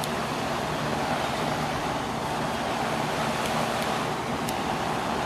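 A 2002 Ducane 2.5-ton packaged heat pump running in cooling mode: a steady rush of the outdoor fan, with a low hum underneath.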